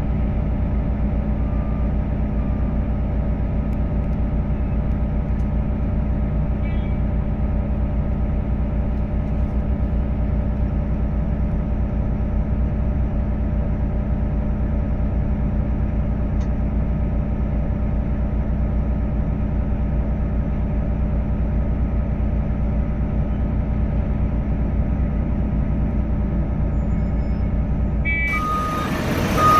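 Heavy diesel engine running steadily at a constant speed. Near the end the engine note grows louder and rougher and a reversing beeper starts beeping.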